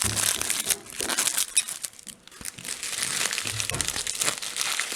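Packaging being handled and unwrapped by hand, crinkling and rustling in quick irregular crackles, with a short lull about two seconds in.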